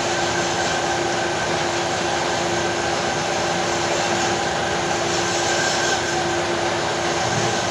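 A workshop machine running steadily, with a constant hum over an even whirring noise.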